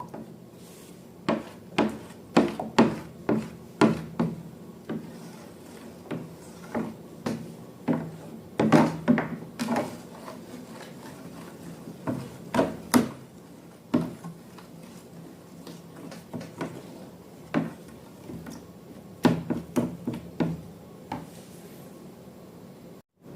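Irregular sharp knocks, taps and clicks of small objects being handled and set down on a hard surface, over a faint steady hum.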